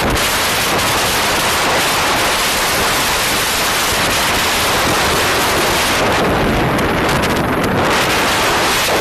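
Loud, steady wind rush on the microphone of a camera moving along a road at speed.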